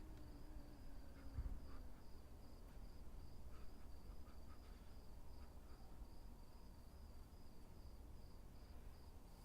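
Faint night ambience: a cricket chirping in an even, pulsing rhythm over a low rumble. A low falling tone fades out about two seconds in.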